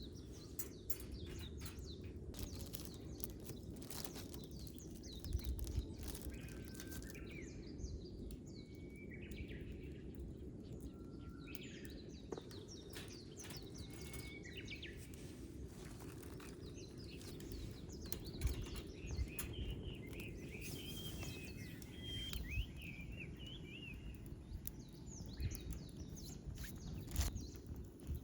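Wood fire crackling, with irregular sharp snaps and pops over a steady low rush. Birds chirp in the background, most around the middle and two-thirds of the way through.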